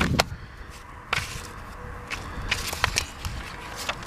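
Pages of a paper manual being handled and turned: a string of short crackles and rustles over a low, steady rumble of wind on the microphone.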